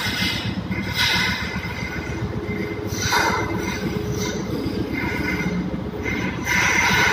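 Ship's hydraulic steering gear running during an emergency steering test: a loud, continuous machinery din with a whine. The sound shifts about three seconds in, and near the end it grows louder as a new steady tone comes in.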